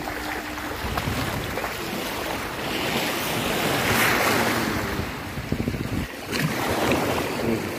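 Small sea waves breaking and washing up onto a sandy shore, with wind buffeting the microphone. The wash swells loudest about four seconds in.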